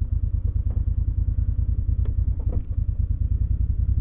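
Vehicle engine running at low speed with a steady, fast-pulsing low rumble and a few light rattles.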